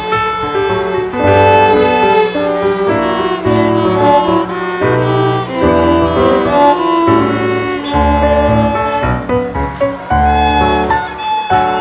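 Violin playing a melody over an accompaniment with deep bass notes that change about once a second.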